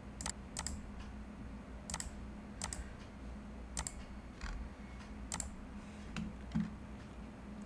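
Scattered sharp clicks of computer input at a desk, about six spread irregularly over several seconds, over a faint low steady hum.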